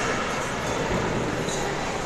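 Steady background noise of an indoor ice rink: an even low rumble with faint, indistinct chatter.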